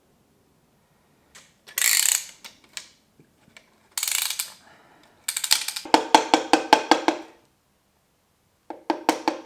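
A hand ratchet wrench clicking in quick runs of about eight to ten clicks a second, twice, after two short hissing bursts.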